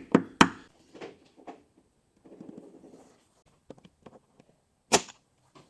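Paintless dent repair tool work on a car body panel: a few sharp clicks and knocks, the loudest near the end, with some faint handling rustle in between.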